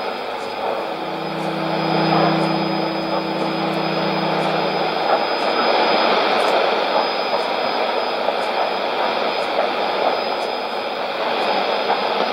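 Shortwave radio receiving a test transmission on 5990 kHz: a steady rushing noise with a thin high whistle, and a low steady tone that sounds from about one to five seconds in and then drops away.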